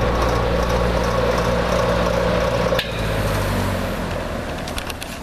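Vintage Lasko 6745 box fan running, with its motor humming under the whoosh of the blades. About three seconds in there is a click and the sound drops, then the motor hum fades out as the blades coast down, with another click near the end.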